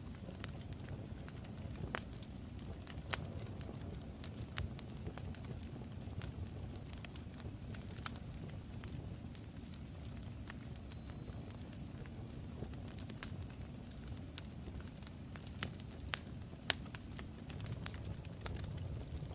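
Crackling fire: a steady low rumble of flames with scattered sharp pops and crackles, and a faint thin high whistle held for several seconds midway.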